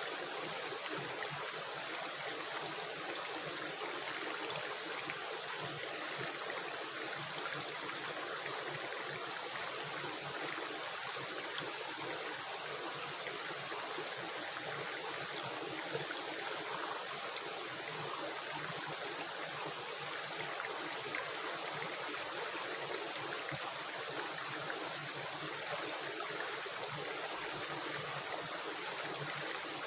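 Running river water, rushing and gurgling steadily.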